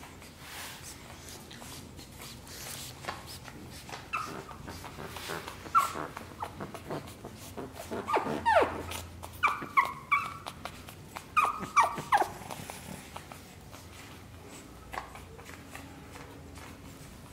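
Pug puppy giving a run of short, high-pitched yips and whimpers, some dropping in pitch, clustered in the middle of the stretch.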